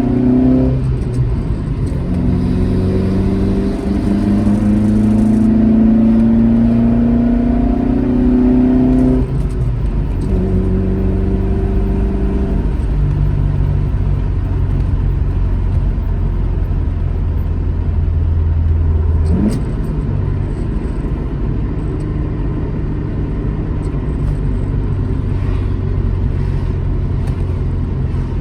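Alfa Romeo GT Junior's twin-cam four-cylinder engine pulling through the gears. The pitch drops at a gear change about a second in, then rises steadily for about eight seconds. It drops again at another shift, and the engine then runs at steady revs.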